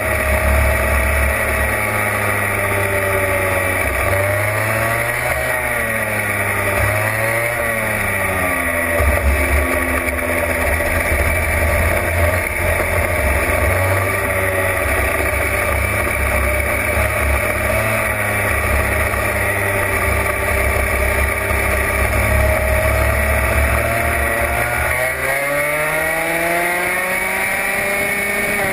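Onboard sound of a racing kart's engine under way, its pitch dropping and climbing several times through corners in the first ten seconds, then held steady along a long stretch before dipping and rising again about twenty-five seconds in.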